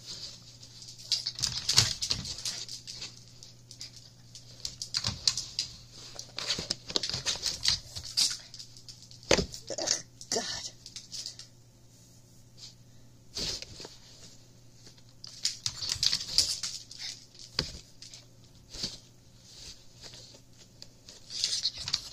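A kitten scratching and clawing at the cardboard of a soda-can box from inside, in irregular bouts of scratchy rustling and clicks with short pauses between.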